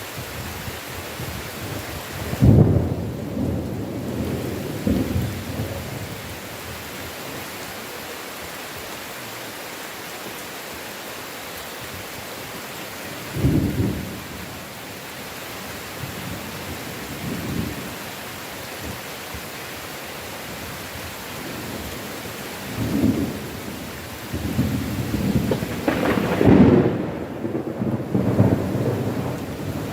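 Heavy steady rain hissing, with thunder rumbling over it: a sharp peal a few seconds in, a short rumble near the middle, and a long rolling peal building through the last third.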